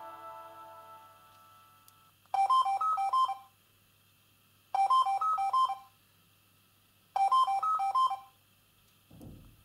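Samsung SGH-Z130 mobile phone playing a ringtone: a short phrase of quick electronic beeps, repeated three times with pauses of about a second between. The previous melody fades out during the first two seconds, and a brief low thump comes near the end.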